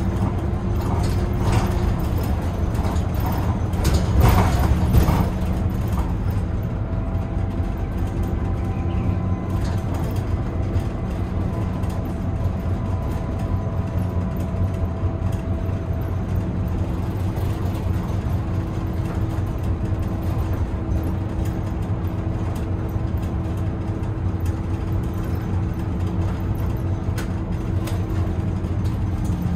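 Bus diesel engine and drivetrain running steadily under way, with tyre and road rumble, heard from inside the driver's cab. A few short knocks or rattles come about four to five seconds in.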